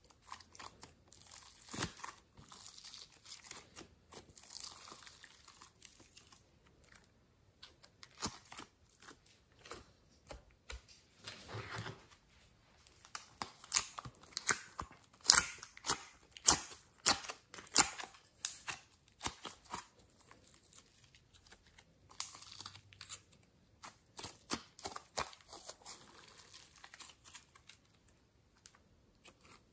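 Hands opening plastic pots of soft modelling clay and pulling and squishing the clay: an irregular run of sharp plastic clicks and sticky crackling, tearing noises, busiest and loudest in the middle.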